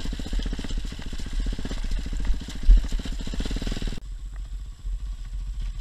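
Enduro dirt bike engine running at low, uneven revs as the bike crawls over rocks, with a thump near the middle. About four seconds in the sound cuts abruptly to a quieter engine idling.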